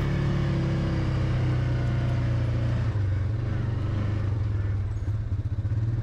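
Engine of an open off-road utility vehicle running at a steady pace while driving, a low, even drone with a regular pulse.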